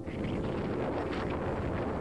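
Wind blowing across the microphone: a steady, noisy rush with no tone in it.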